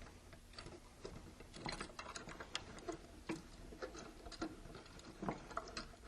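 Faint, irregular metallic clicks and taps of a 6mm Allen wrench on the bolts of the control panel bracket as they are loosened.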